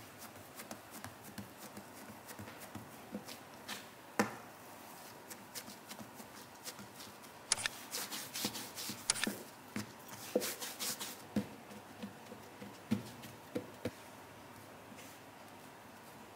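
Bread dough being pressed by hand and rolled out with a rolling pin on a silicone baking mat: soft pats and taps, then a busier run of sharp clicks and knocks from the pin partway through, thinning out towards the end.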